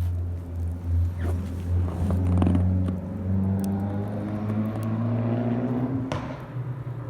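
Motorcycle engine running steadily, its pitch climbing for a few seconds and then dropping about six seconds in.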